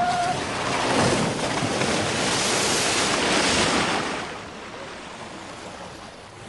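Water rushing and splashing down a steep water-park slide. It is loud for the first few seconds, then dies down to a softer, steady flow.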